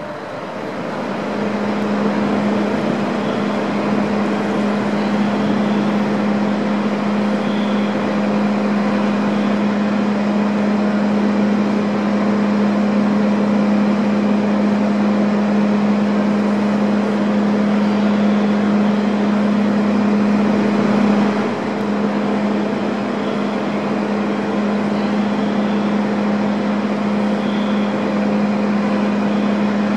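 Steady machinery drone on a car ferry's enclosed vehicle deck: a constant low hum over a wash of mechanical noise. It swells up about a second in and dips briefly about two-thirds of the way through.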